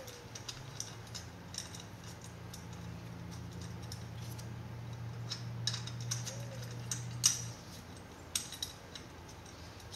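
Faint, scattered light metallic clicks and clinks of a 12 mm socket and small parts being handled while the cylinder head nuts of a small two-stroke bicycle engine are run on. A low steady hum runs underneath and stops about three-quarters of the way through.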